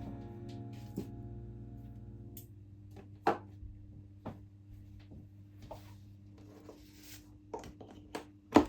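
Background music fades out over the first couple of seconds. Scattered light clicks and knocks of small objects being handled follow, with the sharpest knock near the end.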